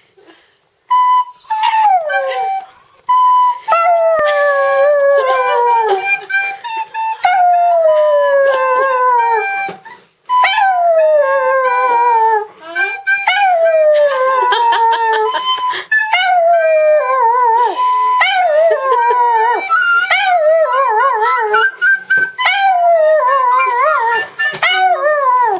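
A dog howling along to held notes on a pipe-like wind instrument: a long run of loud howls, each sliding down in pitch, with short steady notes between them. Toward the end the howls turn wavering.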